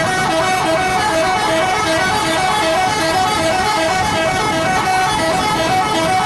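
Musical multi-tone 'telolet' air horns on PO Haryanto buses, sounding continuously in a horn battle. Several stepped melodic tones overlap and repeat in short notes throughout.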